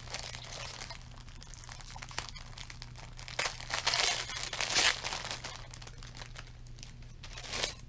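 Thin clear plastic packaging bag crinkling as fingers work at it and pull it open. The crinkles come irregularly, loudest in a cluster of rustles around the middle.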